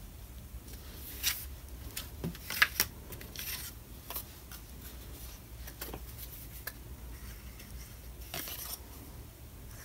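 Sheets of paper and cardstock being handled and shuffled on a craft mat: scattered rustles and light taps, the sharpest about two and a half seconds in, and a short rustle near the end.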